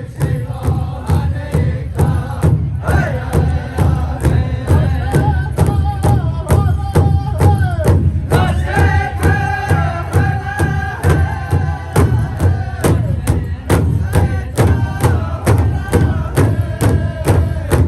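Powwow drum group: several singers chanting high phrases that step down in pitch, over a steady beat of about three strokes a second on a large shared drum.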